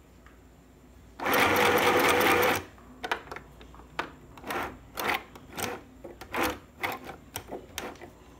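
Sew Simple FHSM 505 mini sewing machine with a knit foot fitted, running in one loud burst of about a second and a half as it stitches fabric, then stopping. After it, a string of short, irregular clicks and knocks.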